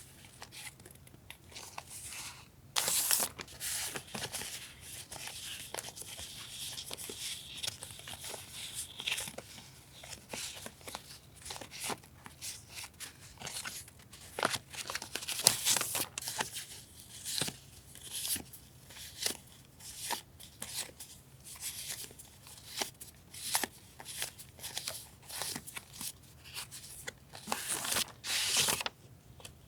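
Paper and wrapping being handled and torn: irregular tearing, crinkling and rustling strokes, with a longer stretch of tearing a few seconds in. A refrigerator hums faintly and steadily underneath.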